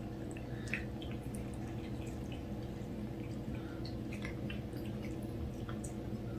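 A cat licking and smacking its lips after a lickable churu treat: scattered small wet clicks over a steady low hum.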